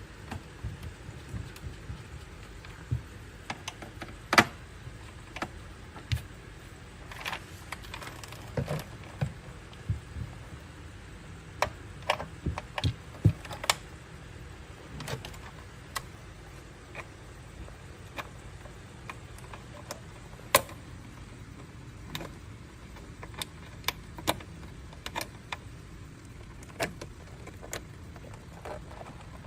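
Irregular clicks, taps and light metallic rattles of small parts and tools being handled while working on a massage chair's electronics, over a steady low hum.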